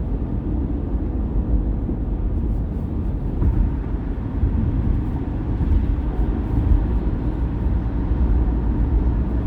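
Steady road and tyre noise of a car cruising at highway speed, heard from inside the cabin as a low, even rumble.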